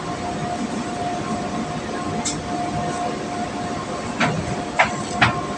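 Steady mechanical background noise with a constant faint whine, and three sharp clicks about four to five seconds in.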